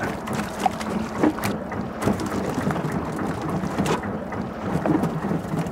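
Small fishing boat at sea: a steady low engine hum under sea wash and wind on the microphone. A few short knocks come as mackerel are shaken off a handline into the boat.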